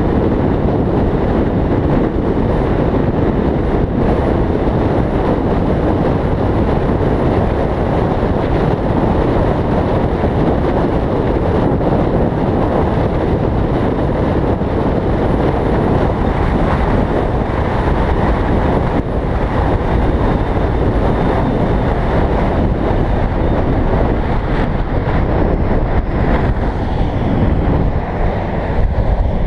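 Steady loud rushing of wind and road noise on a fast-moving, low-mounted camera, with highway traffic.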